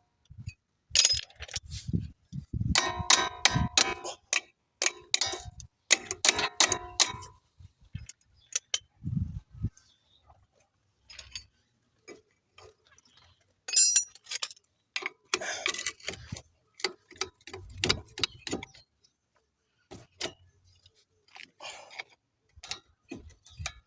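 Metal clicks, clinks and knocks of hand tools and brake caliper parts being handled while a brake caliper is taken off. The sounds come in scattered clusters, some with a short metallic ring, with quiet gaps between.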